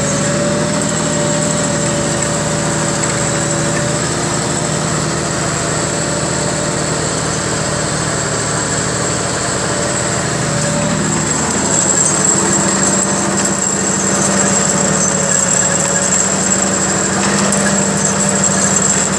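Tractor engine running steadily under load while pulling a plough through heavy soil, heard from the driver's seat. About eleven seconds in, the engine note steps up a little and grows slightly louder.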